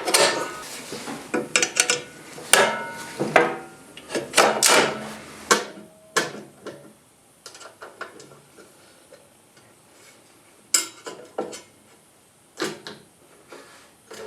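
Clicks, knocks and clinks of metal parts being handled and fitted while a thickness planer is assembled. The knocks come thick and fast for the first several seconds, then only now and then.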